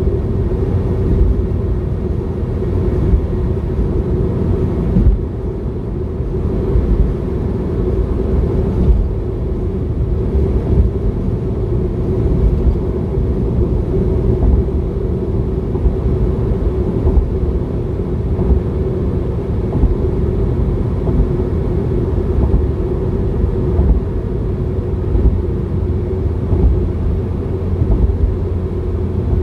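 A car driving steadily: a constant low rumble of road and engine noise, heard from inside the cabin, with a faint steady hum over it.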